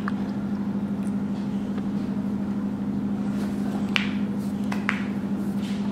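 A steady low hum with two short, light clicks, about four and five seconds in.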